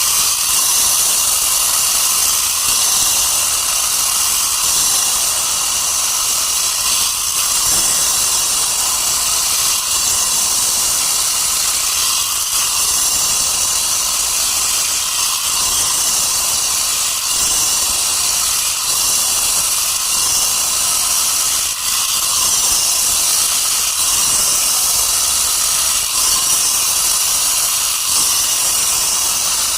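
Power saw cutting stone: a steady, high-pitched hissing grind that runs on without a break.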